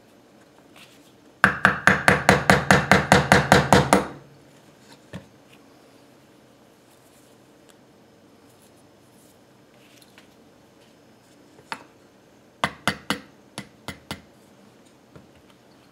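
Claw hammer tapping a blunted nail used as a punch, driving the firing pin retainer out of a Type 81 rifle bolt, metal on metal. A quick run of about twenty light strikes, then a short burst of about six more near the end.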